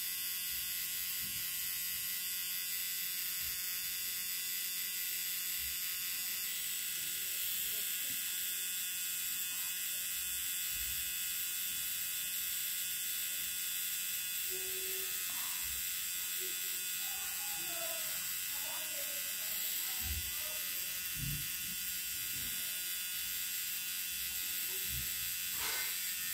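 Corded permanent-makeup (eyebrow tattoo) pen running with a steady high electric buzz while its needle works along an eyebrow. A few faint low knocks and murmurs come in during the second half.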